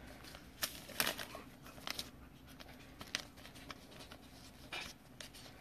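Faint, scattered crinkles and ticks of plastic as a trading card in a clear plastic sleeve is handled.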